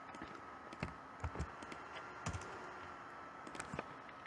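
A few scattered computer keyboard keystrokes, with a faint steady high-pitched whine underneath.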